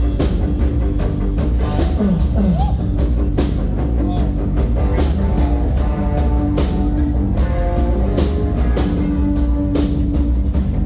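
Live rock band playing an instrumental passage with drum kit and guitars, no vocals, loud and steady throughout.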